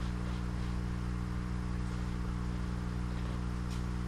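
Steady electric hum of the air pump running the hydroponic tank's aerators, an even drone made of several stacked tones.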